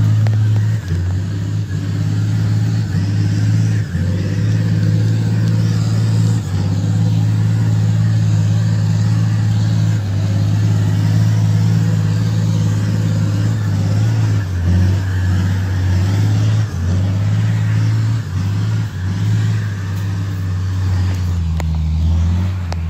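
Truck engine running under load as it climbs a muddy dirt track: a steady low drone whose pitch drops and rises again several times as the engine strains and eases.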